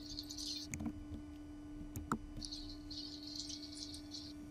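Fast-forwarded recording audio: high chirping squeaks in two stretches over a steady low tone, with two sharp clicks about one and two seconds in.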